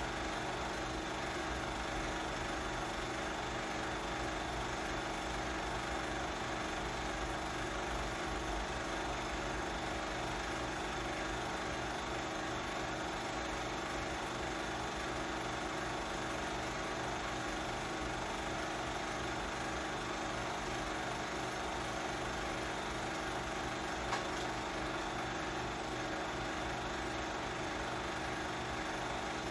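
Film projector running steadily: an even motor whir with a fast, regular flutter from the film mechanism.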